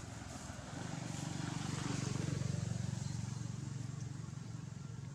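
An engine passing by: a low pulsing motor hum with a hiss over it that swells to its loudest a little after two seconds in and then fades away.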